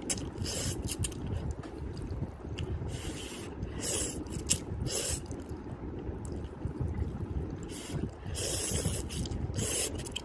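Instant ramyun noodles being slurped and eaten: a series of short, hissy slurps at irregular intervals, with a longer one near the end.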